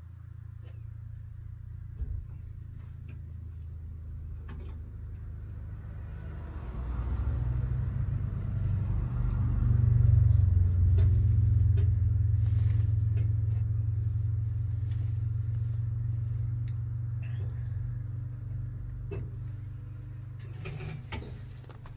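A road vehicle going by: a low engine and road rumble swells up over a few seconds, peaks about ten seconds in, then slowly fades away.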